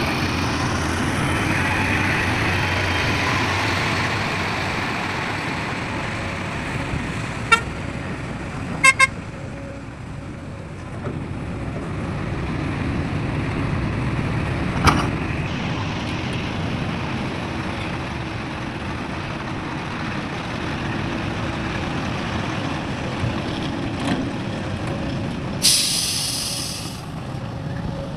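Heavy trucks' diesel engines running steadily. Short horn toots come about a third of the way in, and a loud air-brake hiss lasts about a second near the end.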